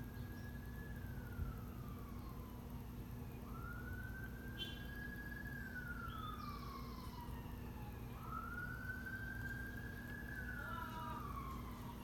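A siren wailing in slow cycles: each rises, holds a high pitch, then glides down, repeating about every three seconds, over a steady low hum.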